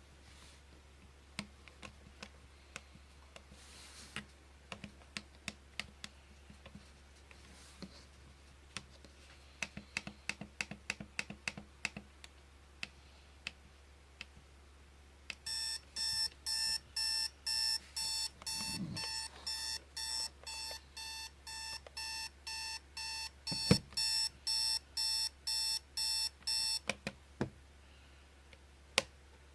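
A Spartus 1140 digital alarm clock's buzzer sounding in short, evenly spaced buzzes, about two and a half a second, for roughly twelve seconds in the second half, then stopping. Before it come scattered sharp clicks, a few more follow it, and a single low thump is the loudest sound.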